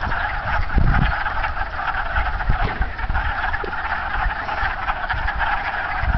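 Breeding chorus of wood frogs: many males calling at once in a dense, continuous clucking, duck-like chatter. A low thump about a second in.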